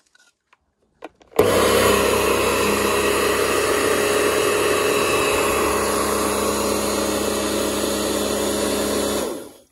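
Kärcher K2 Compact electric pressure washer starting up about a second in, its motor and pump running steadily with a constant hum, then stopping shortly before the end. Water is spraying out of both sides of the housing, the sign of an internal water leak.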